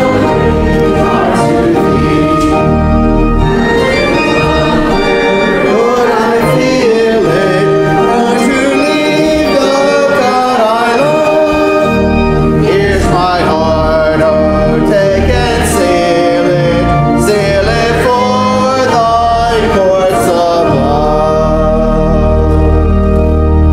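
A hymn sung by voices with organ accompaniment, the organ holding sustained bass notes under the melody.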